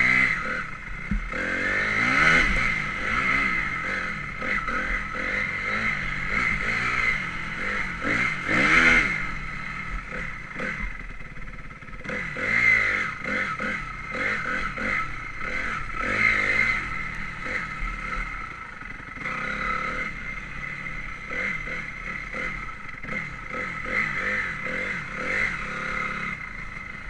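Honda CRF250R's single-cylinder four-stroke engine revving up and easing off again and again while the motocross bike is ridden, with several loud surges in the revs, the biggest about two and nine seconds in. The engine runs lower and steadier over the last several seconds.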